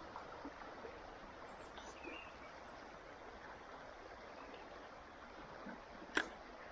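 Steady, quiet rush of a stream, with a few short bird chirps about a second and a half in and a single sharp click about six seconds in.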